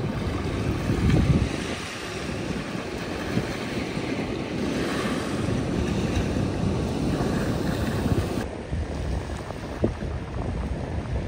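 Small waves washing onto a sandy beach, with wind rumbling on the microphone. The sound shifts suddenly about eight seconds in.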